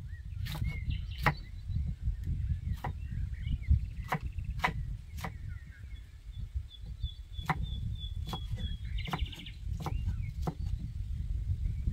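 Kitchen knife chopping green bell peppers on a thick wooden chopping block: irregular knocks of the blade on the wood, roughly one a second, over a low rumble, with birds chirping and trilling.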